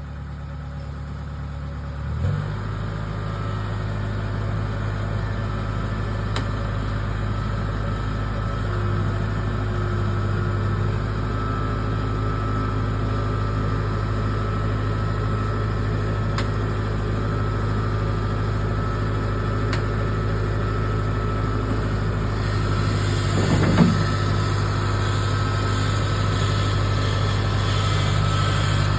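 A vehicle engine running steadily. It picks up about two seconds in, and there is a brief knock a little before the end.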